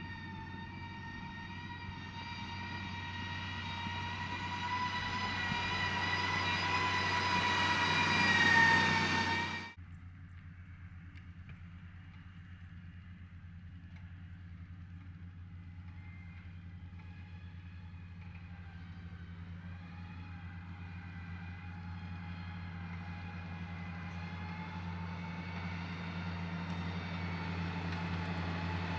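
Heavy diesel earthmoving machine running under load, its engine and whine growing louder for about nine seconds, then breaking off suddenly to a quieter, steady engine sound that slowly builds again.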